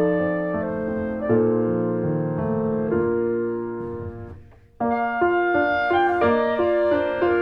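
Background piano music with sustained notes. It fades out briefly about four and a half seconds in and then starts again.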